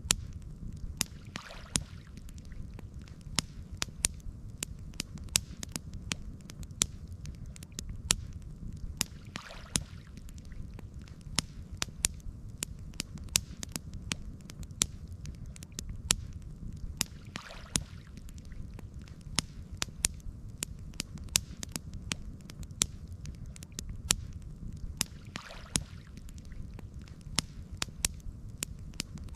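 Campfire crackling, with frequent sharp pops and snaps over a low steady rumble, and a soft swell about every eight seconds.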